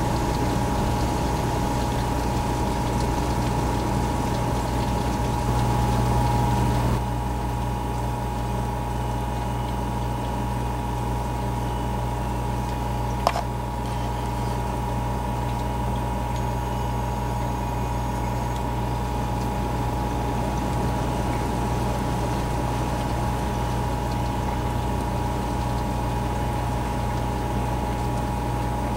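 Steady hiss of rain and hail falling, with a constant hum underneath. The hiss eases slightly about seven seconds in, and a single sharp click comes near the middle.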